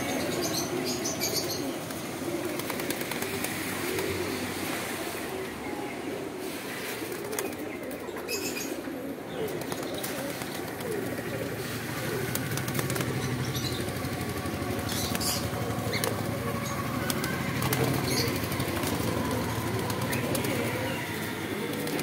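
A crowd of caged domestic pigeons cooing continuously in a low, overlapping murmur, with repeated bursts of wing flapping as birds flutter about inside the cage.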